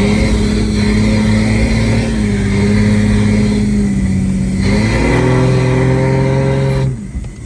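Jeep Wrangler TJ's engine running hard under throttle on a trail climb, holding a steady note. The note shifts about two-thirds of the way in, and the engine then drops off suddenly near the end as the throttle is released.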